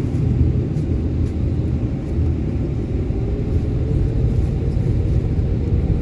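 Boeing 777 cabin noise while rolling on a wet runway: a steady low rumble from the engines and the ground roll, with a faint engine tone rising slightly in pitch in the second half.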